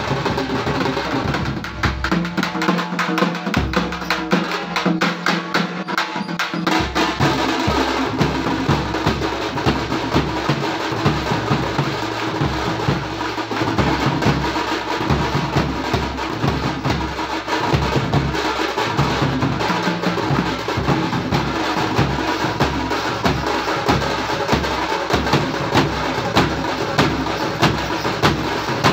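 Tamil thappattam drum ensemble playing a fast, loud rhythm: sharp stick strokes on thappu frame drums over deep strokes on large bass drums. The deep bass-drum strokes drop out about two seconds in and come back as a steady pounding beat about seven seconds in.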